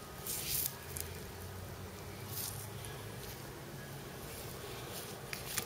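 Quiet room tone with a steady low hum and a few brief, faint rustles, one near the start, one in the middle and a couple near the end.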